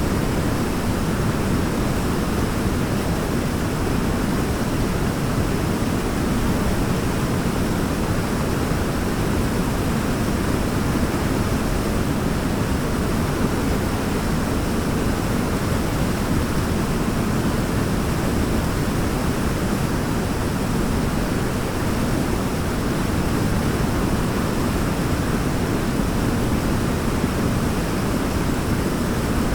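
Waterfall: a steady, deep rush of falling water, even throughout with no change in level.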